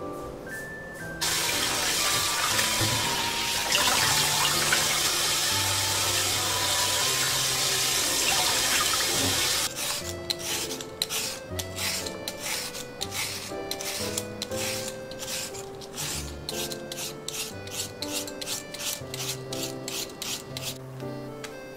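Water running in a steady rush for about eight seconds. It then gives way to a julienne peeler scraping down a peeled carrot in repeated quick strokes, a few a second, shredding it into thin strips, over light background music.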